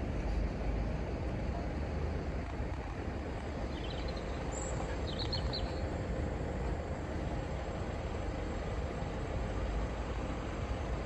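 Steady low rumble of outdoor background noise, with a few brief high chirps about four to five seconds in.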